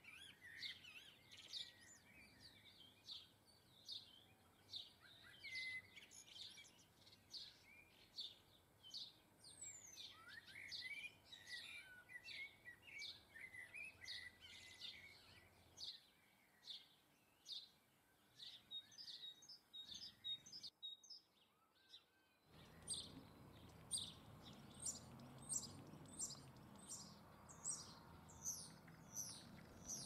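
Small garden birds chirping and calling in quick, short, high notes, several a second. The calls break off briefly about two-thirds of the way through, then resume over a faint low background rumble.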